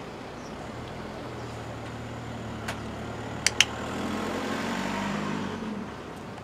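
A motor vehicle's engine running as it passes along the street, its hum building and then fading away near the end. A sharp double click cuts through about halfway, after a fainter click.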